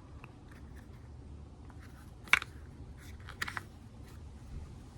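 A few sharp clicks and taps from small parts being handled, the loudest one about two and a half seconds in, over a faint low hum.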